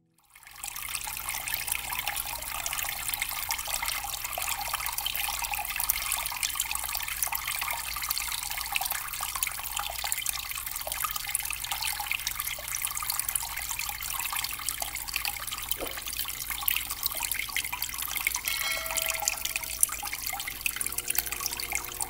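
Water from a small pump-fed tabletop cement fountain splashing and trickling steadily into its basin, with a faint low hum underneath. It starts abruptly about half a second in.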